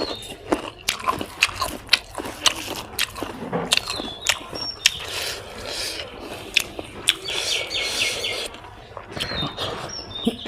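Close-up mouth sounds of a person chewing pork: a steady run of wet smacks and clicks. A few short bird chirps sound in the background now and then.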